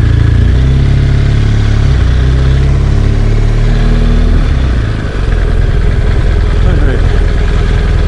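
BMW R1200GS Adventure's flat-twin engine running under way, the revs rising and falling, with a brief dip in level about five seconds in.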